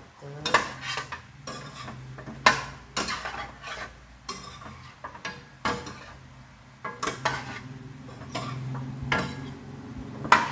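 Metal spoon scraping and clanking against a stainless steel pan in irregular strokes as pork leg pieces are stirred together with crushed garlic and ginger, over a steady low hum.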